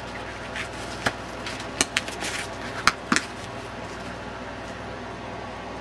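Hands handling a nylon pouch and a plastic insert: fabric rustling with a few sharp clicks and knocks during the first three seconds or so, over a steady low hum.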